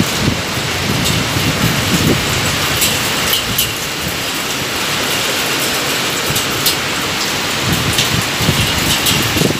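Heavy rain pouring steadily in a downpour, with the odd sharp drop-hit close by.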